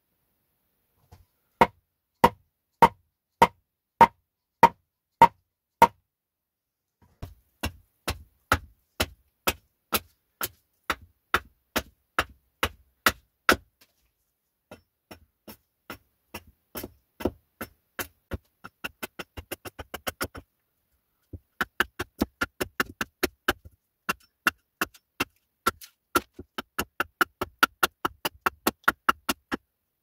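Hatchet striking wood on a chopping block in a long series of sharp, steady blows, splitting and hewing a board into pieces. The blows come about two a second, quicken to about four a second for a short run past the middle, then settle back to two or three a second.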